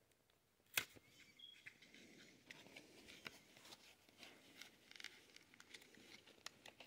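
Faint clicks and scratches of fingers picking at a cardboard-and-plastic package, with one sharper click about a second in.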